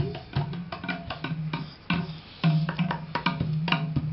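Sundanese celempung, a bamboo tube zither, struck in a quick drum-like rhythm of sharp strokes over a low ringing note.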